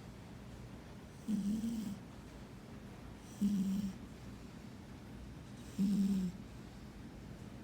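A sleeping cat snoring: three short snores, about two seconds apart.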